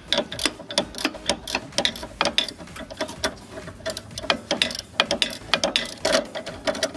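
Ratcheting wrench clicking in quick, uneven strokes as it backs off the lower nut of a worn front sway bar link on a Ford Focus.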